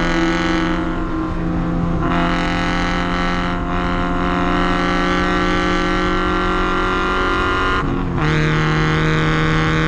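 Porsche 944 engine running hard at a nearly constant engine speed on track, with a brief dip and break in the note about eight seconds in before it picks up again at the same pitch.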